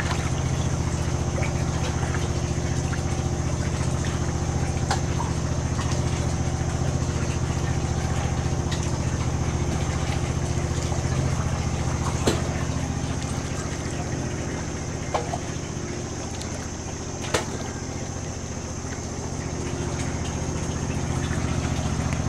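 An engine running at a steady idle: an even low hum with a constant thin high whine above it, and a few sharp ticks scattered through.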